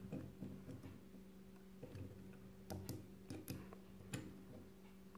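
Faint, irregular clicks and taps of hard plastic as a small minifigure is worked into a Hot Wheels Ride-Ons toy wheelchair by hand, over a steady low hum.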